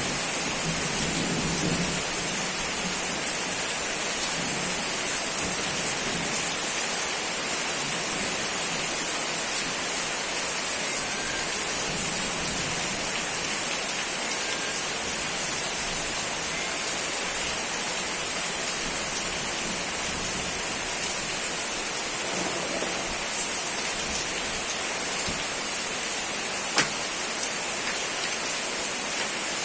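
Steady rain falling: an even hiss, with a few sharp drop ticks and one louder tick near the end.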